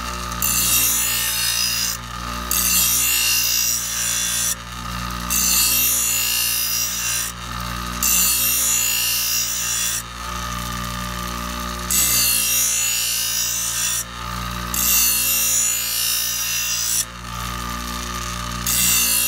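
Ryobi 6-inch bench grinder motor running steadily while a steel lawnmower blade is ground against its wheel to sharpen the edge. The grinding comes in repeated passes of about two seconds each, with short breaks between strokes and a longer pause about ten seconds in.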